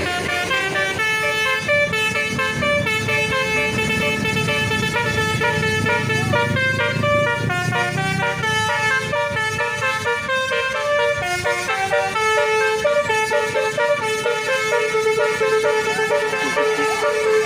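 Bus telolet horn of the basuri type playing a melody, its notes stepping up and down in quick succession. A low rumble sits under the tune for roughly the first half.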